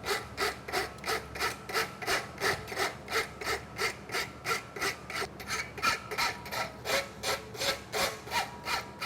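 Farrier's rasp filing the hot wedge on a steel concave horseshoe: quick, even back-and-forth scraping strokes, about three a second.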